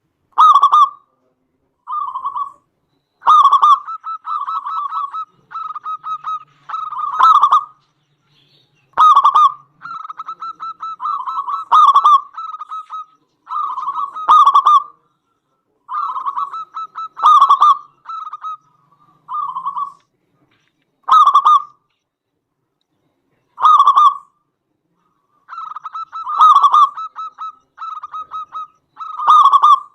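Zebra dove (perkutut) cooing loudly: phrases of rapid staccato coos and short trills, one every two or three seconds, each with a louder accented note.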